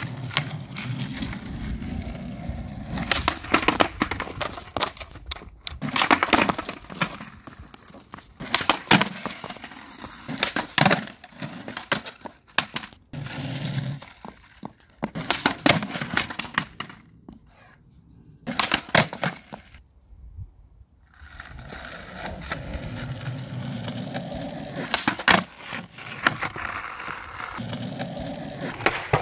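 Skateboard rolling on asphalt, with repeated sharp clacks of the wooden deck slapping and landing on the pavement as flip tricks are tried.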